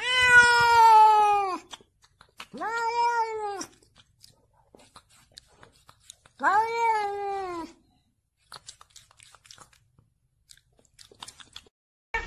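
Domestic cat meowing three times, long drawn-out meows of a second or more each that rise a little in pitch and then fall away. Faint clicks between and after the calls.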